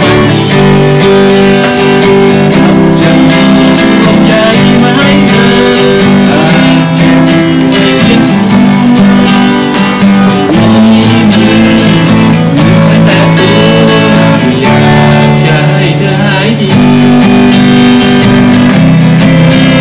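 Steel-string acoustic guitar played solo, chords strummed and picked in a steady, unbroken rhythm.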